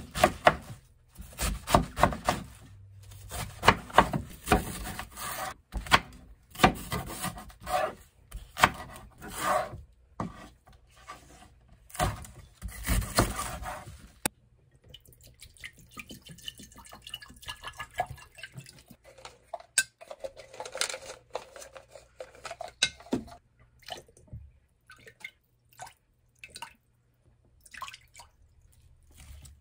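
Kitchen knife chopping napa cabbage and other vegetables on a wooden cutting board, an irregular run of chops through roughly the first half. Then it goes quieter, with light handling sounds and sauce poured from a bottle into an earthenware pot.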